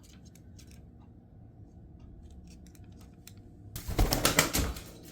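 Congo African grey parrot's wings flapping in a loud flurry of about a second as she flutters down to the floor, near the end. Before it come faint light clicks.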